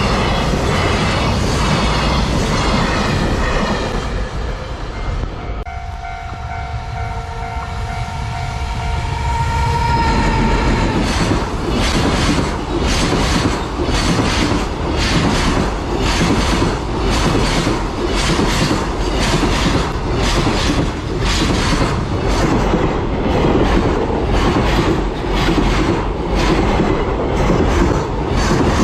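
Container freight trains hauled by EF210 electric locomotives passing. There is rattling wheel noise at first, and a steady tone lasting about four seconds from around six seconds in. Then comes a long, even run of wheel clicks over the rail joints, about two a second, as the container wagons go by.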